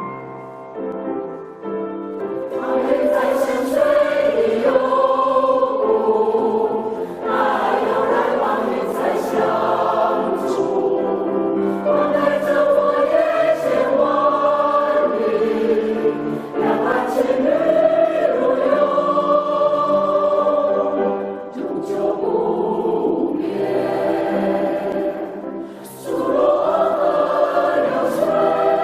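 A choir singing in long phrases with brief breaths between them, coming in about two seconds in after a short instrumental passage.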